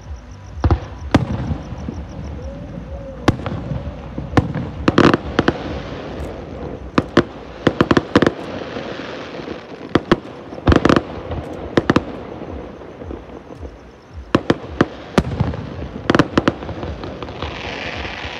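Fireworks show: shells bursting in an irregular run of sharp bangs, some in quick clusters, with a crackling hiss building near the end.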